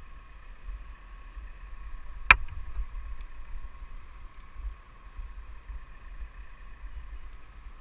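Wind rumbling on a helmet-mounted microphone up in a tree, over a steady distant machine whine, with one sharp knock a little over two seconds in.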